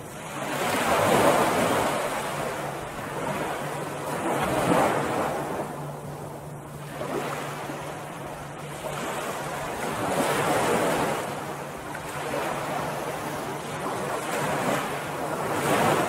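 Ocean surf breaking and washing up on a beach, each wave swelling and fading every few seconds, with a faint steady low hum beneath.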